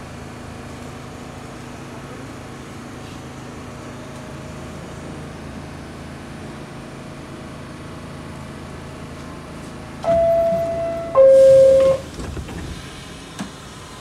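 Steady drone of an R46 subway car. About ten seconds in comes its two-tone door chime, a higher tone then a lower one, followed by a brief hiss and a few knocks as the doors close.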